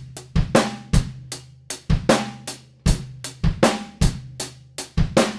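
Live-recorded acoustic drum kit played back from multitrack: kick, snare and cymbals in a steady beat, the hits edited tight to the grid. The kit sounds decent but without much character, and the kick lacks oomph.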